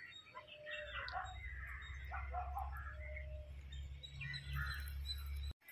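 Faint birds chirping in short scattered calls over a low steady rumble, which cuts off suddenly near the end.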